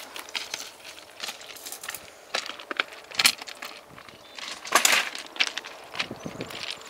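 Clinks and knocks of wood and metal as a bamboo train is assembled on the rails, the bamboo platform being set down onto its steel wheel axles. The knocks are irregular and sharp, loudest a little after three seconds and again near five seconds.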